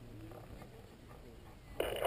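Wind rumbling on the microphone, with faint voices in the background. Near the end a loud, wavering vocal call begins.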